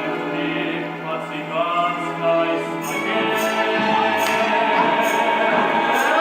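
A choir singing a Gypsy-style song over instrumental accompaniment, with a held low note beneath. A light, evenly spaced percussion beat comes in about halfway.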